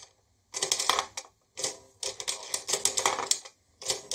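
Plastic toy game mechanism clattering in runs of rapid clicks and rattles as it is worked by hand, with short pauses about half a second in and again near the end.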